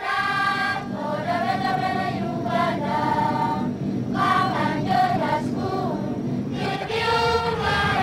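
A crowd of voices singing together in chorus, a choir-like song with held and gliding notes.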